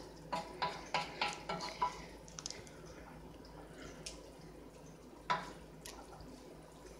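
Serving utensils, a wooden spoon and a fork, knocking and scraping against a cooking pot as spaghetti is scooped out. A quick run of about seven taps comes in the first two seconds, then a few scattered knocks, the loudest about five seconds in.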